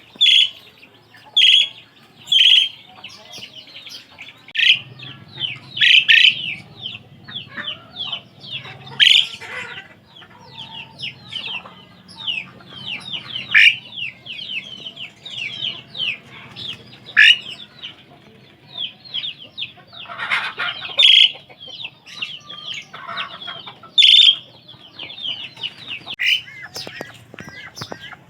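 Asian pied starling singing: a busy, varied run of squeaky chirps and whistles, broken by loud, sharp calls that recur every second or few seconds.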